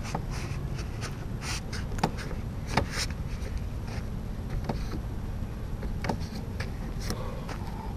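Footsteps and scuffs of a person stepping on and off a wooden bench platform and the dirt ground beside it: a few scattered knocks, the sharpest right at the start. Under them runs a steady low rumble on the microphone.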